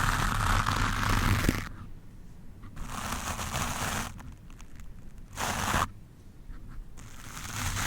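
Stiff wooden brush scraped hard over the microphone, a rough scratching rustle. It runs continuously at first, then breaks into shorter strokes separated by pauses, building again near the end.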